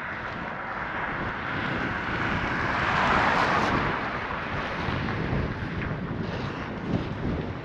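Wind rushing across the microphone, rising to a louder rush about three seconds in and easing off again.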